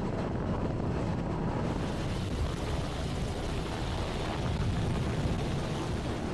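A steady roar of wind at sea. About two seconds in it gives way to the rotor-wash roar of a helicopter hovering just overhead.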